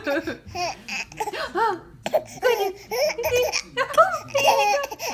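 High-pitched laughter in short, quick bursts.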